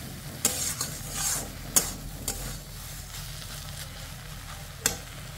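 Chopped water lily stems frying in masala in a metal kadai on full flame, sizzling steadily as a spatula stirs them. A few sharp clicks and scrapes of the spatula against the pan.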